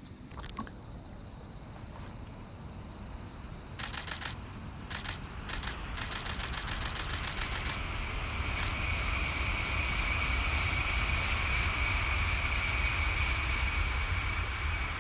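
A camera shutter firing in rapid continuous bursts, about ten clicks a second, in several runs between about four and eight seconds in. Under it a Shinkansen bullet train passing: a rushing 'shugoo' wind-cutting noise with a low rumble and a high whine, building from about six seconds in and holding steady to the end.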